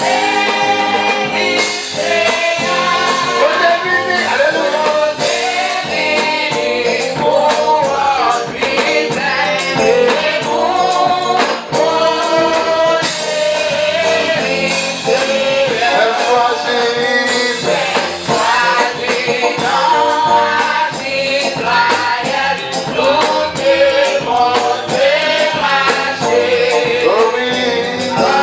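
A church congregation singing a gospel hymn together, with a steady rhythmic percussion beat such as tambourine.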